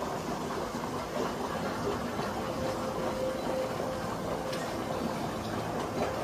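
Steady rushing of churning water in an indoor pond, with a faint hum holding for a couple of seconds midway.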